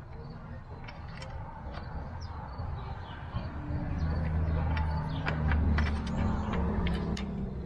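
Small metal clicks and scrapes of drum-brake hardware (the adjuster clip and shoe parts) being handled and seated by hand. A low hum swells about halfway through and fades near the end.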